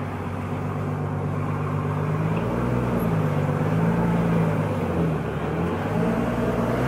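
Heavy truck's diesel engine running as the truck pulls slowly past close by. The engine note rises and falls and grows louder.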